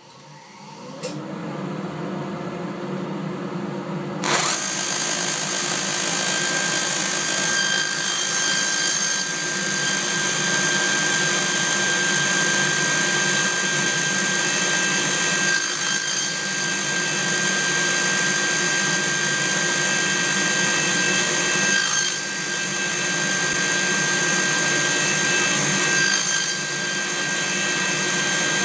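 Shop dust collector spinning up, then a table saw motor switched on about four seconds in and running steadily. A few brief changes in the sound come several seconds apart as small wood pieces are cut.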